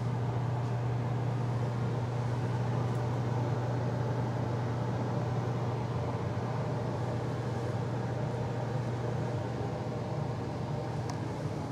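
Hotel room air conditioner running: a steady low hum over an even rush of air, with a couple of faint ticks.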